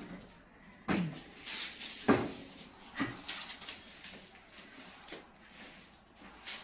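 Long-handled broom sweeping a floor in strokes: four sharp knocks of the broom against the floor, most followed by a short brushing swish of the bristles.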